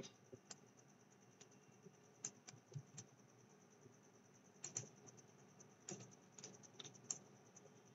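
Faint, scattered computer mouse clicks over near silence, about fifteen single sharp clicks at irregular intervals, some in quick pairs.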